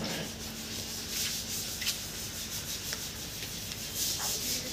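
A hand-held pad or cloth rubbing over a high-gloss PU-finished tabletop, in swishing strokes that come and go.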